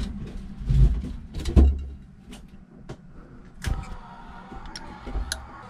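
Knocks and handling bumps, then a click about two-thirds of the way in as a sailboat's watermaker is switched on, followed by its electric pump running with a faint steady hum.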